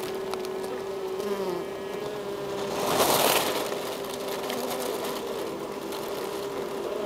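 Honeybee colony humming inside the hive: a steady buzzing drone with one even tone. A brief louder noise swells up about three seconds in.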